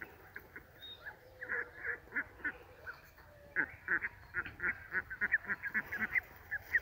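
A flock of domestic ducks quacking: short calls, scattered at first and then coming in quick succession from about halfway through.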